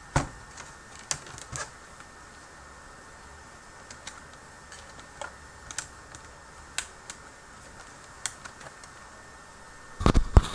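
Scattered light clicks and taps of plastic laptop parts as a small hinge cover on the screen lid is worked loose, with a louder cluster of knocks near the end.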